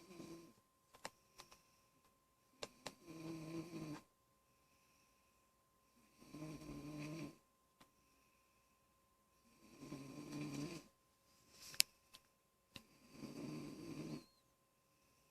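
Child snoring in slow, regular breaths, one rasping snore of about a second every three to four seconds, with a few faint sharp clicks between the snores.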